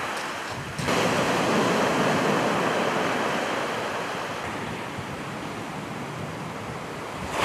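Sea waves breaking and washing up a shingle beach: a surge of surf about a second in that slowly dies away.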